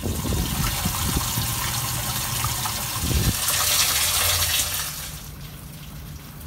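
Water jetting and splashing into a bass boat's livewell from its fill spray head, a steady gush that eases off about five seconds in.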